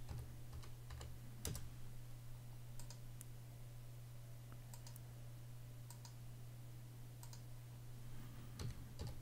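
Faint, scattered clicks of a computer mouse and keyboard keys as dimension values are picked and typed in, over a steady low hum.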